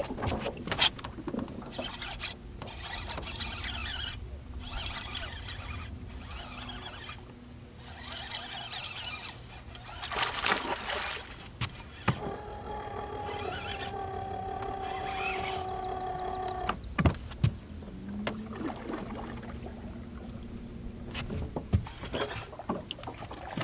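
Bow-mounted electric trolling motor whirring in two short runs near the middle, the second lower in pitch, over scattered clicks and knocks from the fishing rod and reel on the boat.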